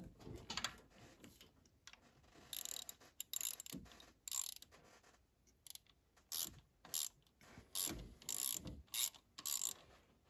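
Hand ratchet clicking in short, irregular bursts with brief pauses, as bolts on the engine's cylinder head are turned by hand.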